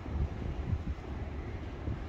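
Wind buffeting the microphone, a low, uneven rumble that comes and goes in gusts.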